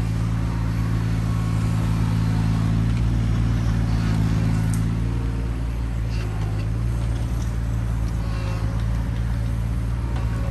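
Mini excavator's diesel engine running steadily as the boom and bucket work a soil bank, its note shifting slightly about halfway through as the load changes.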